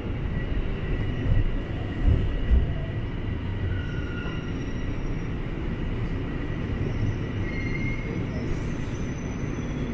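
Toronto subway Line 1 train (Toronto Rocket car) running between stations, heard from inside the car: a steady low rumble of wheels on track with faint, thin wheel squeals above it.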